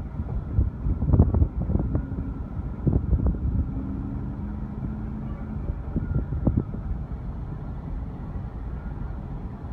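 Car cabin noise while the car drives slowly: a steady low engine and road rumble, with a few knocks and bumps during the first six or seven seconds.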